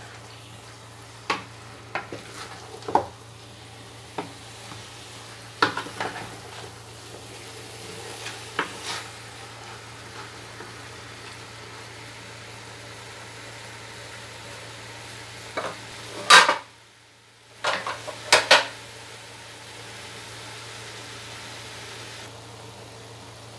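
Chicken pieces sautéing in an aluminium pot with a steady sizzle, while a wooden spatula stirs them, scraping and knocking against the pot now and then. The loudest knocks come in a cluster about two-thirds of the way through.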